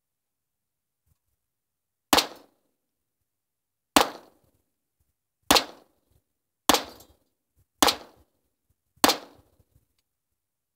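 Six single shots from a Sterling .22 LR semi-automatic pistol, fired about one to two seconds apart, each a sharp crack with a short fading tail. All six fire without a jam.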